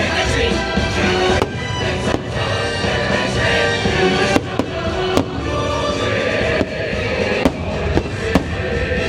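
Fireworks show: aerial shells bursting with a series of sharp bangs, roughly every second or two, over loud orchestral show music.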